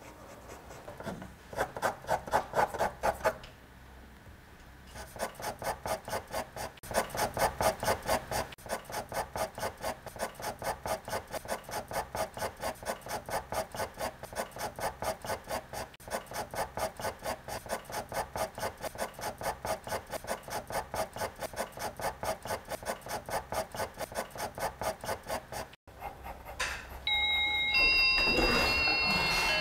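Pencil scratching back and forth on paper in quick even strokes, about four a second, as in sketching or shading, with a short pause early on. Near the end it stops abruptly and a few high steady tones come in.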